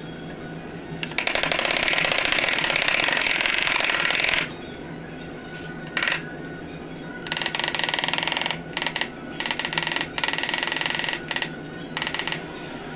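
A power tool run in short bursts, each with a fast, dense rattle. The first burst lasts about three seconds; several shorter on-and-off bursts come in the second half. A steady low hum runs underneath.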